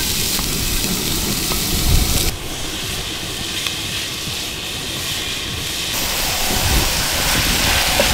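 Chopped onions sizzling in hot oil in a cast-iron potjie, a steady frying hiss.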